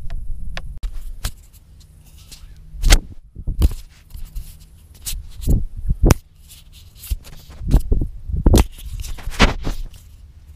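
Irregular knocks, thumps and rubbing from a GoPro camera being handled and taken down from its mount, with a dozen or so sharp bumps, the loudest about three seconds in and again near the end.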